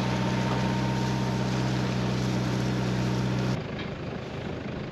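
An engine running at a steady pitch, cutting off abruptly about three and a half seconds in and leaving a quieter background noise.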